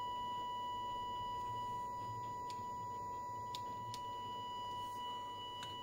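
Steady 1 kHz test tone, slightly impure, from the FUP1A radio test set's built-in audio generator, heard through its speaker as the unit first comes to life on a slowly raised mains voltage. A few faint clicks come from the controls being handled.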